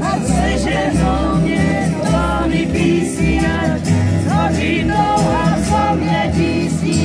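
Live acoustic folk music: a voice singing over a strummed acoustic guitar, with a walking double bass line underneath.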